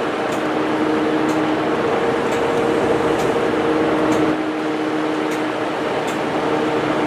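Class 43 HST power car's diesel engine running steadily at a standstill beside the platform, a steady hum with a whine, over the hiss of heavy rain, ready to depart. Faint ticks come about once a second.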